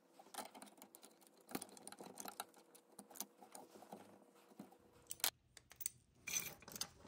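Faint, scattered clicks and clinks of a wrench and locking pliers working on a 3D printer's direct-drive extruder and hotend, which is being taken apart to clear a filament jam. A sharper click comes a little past five seconds in.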